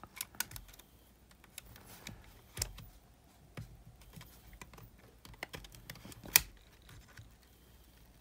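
Scattered small clicks and snaps from the case of a Sony Walkman WM-GX822 cassette recorder being prised open by hand, the loudest snap about six seconds in.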